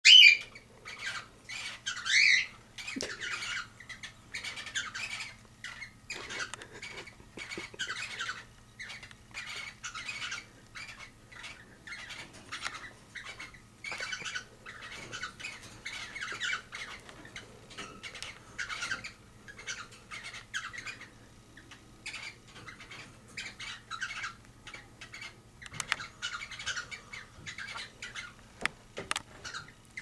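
Cockatiels chirping and squawking in quick short calls, a few a second, with loud squawks at the very start and about two seconds in, while a pair mates.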